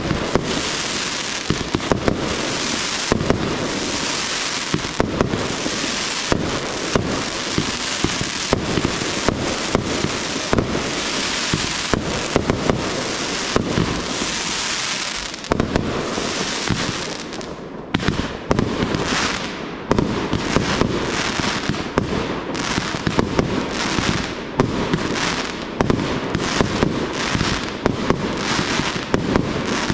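Fireworks display: a rapid barrage of shells and comets launching and bursting, with many sharp bangs over a dense crackling hiss. About seventeen seconds in the hiss thins and the bangs come more separately.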